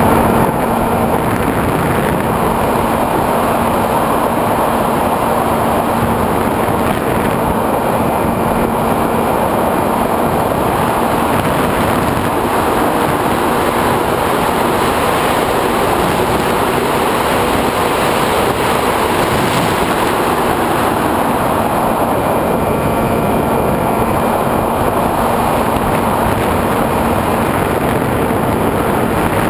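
Steady wind rush and a low electric motor and propeller hum, picked up by a camera mounted on a SkyWalker 1900 FPV model plane in flight.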